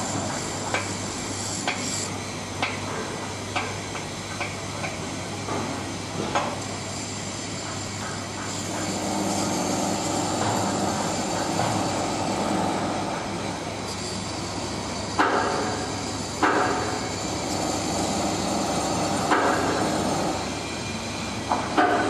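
Distant hammer blows on steel, about one a second, as workers hammer out the securing pins under a tower crane's operator cabin. Street traffic swells midway, and a few louder bangs come in the last third.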